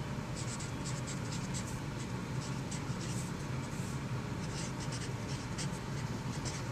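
Felt-tip marker writing on poster board: a string of short scratchy strokes as letters are written out, over a steady low background hum.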